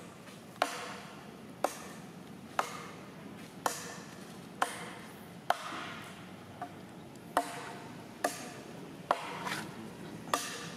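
Sharp knocks at a steady pace of about one a second, each with a brief ring, like repeated chopping blows.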